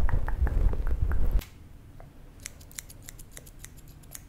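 Loud rubbing noise close on the microphone that cuts off suddenly about a second and a half in, followed by small metal scissors snipping rapidly near the mic, about a dozen crisp snips in under two seconds.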